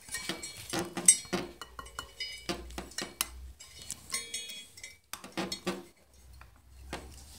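Steel spokes of a dirt bike's wire-spoked wheel clinking and ringing as they are gripped and wiggled by hand: a quick run of metallic clinks, with a pause about five seconds in and a last few clinks just after. The spokes feel a little loose.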